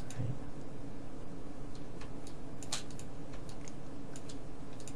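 A few light, scattered clicks from working at a computer, the loudest about two and three-quarter seconds in, over a steady low hum and hiss.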